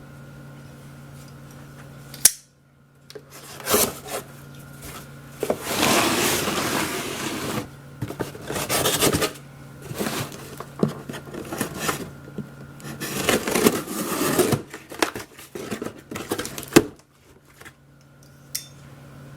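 A cardboard box being opened and its packaging handled: bursts of scraping, rustling and knocking, with a sharp click a couple of seconds in and another near the end.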